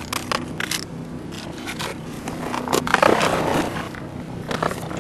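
Irregular crackling and scraping of litter being pressed into a full plastic trash bag, with a busier stretch of crinkling about three seconds in.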